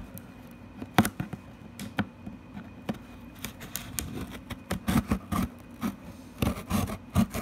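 The last security seal on a cardboard box being cut, and the box handled. Scattered scrapes, rubs and sharp clicks of cardboard and tape, with a sharp click about a second in and more activity in the second half.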